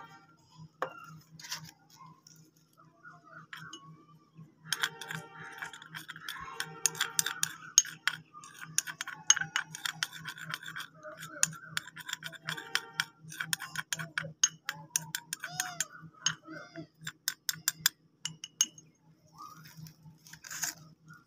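Metal cutlery clinking and scraping in quick, irregular strokes, over a steady low hum. The clinking is densest from about five seconds in until near the end.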